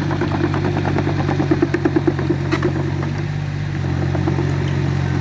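Small backhoe's engine running steadily, with a quick run of clattering knocks in the first half.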